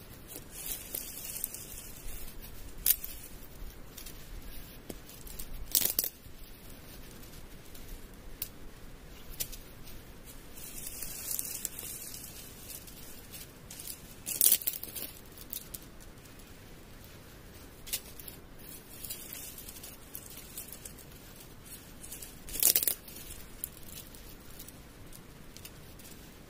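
Dry leaf litter crunching and rustling as a person steps and handles things around a shelter, with four sharp cracks spread through, the loudest about halfway.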